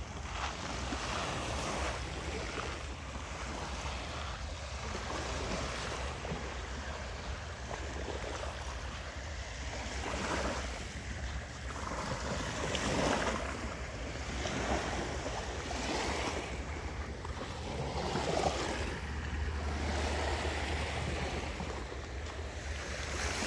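Small waves washing onto a sandy beach, the surge rising and falling every couple of seconds, with a steady low rumble of wind on the microphone.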